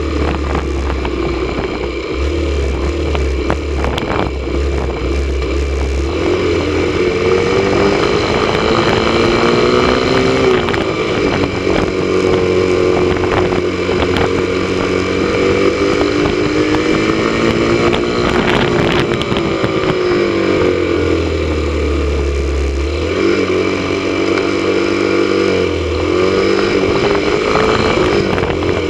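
Motorcycle engine running under way, heard from the rider's seat. Its note climbs twice with the throttle and falls back each time, over a low rumble that comes and goes.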